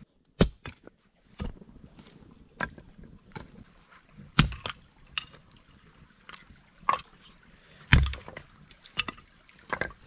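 Campfire crackling and popping: sharp, irregular cracks from burning wood, about one a second, a few of them with a heavier knock.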